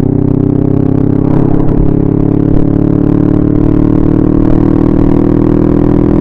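Motorcycle engine running steadily at road speed, heard from on the bike, with a steady, even-pitched drone.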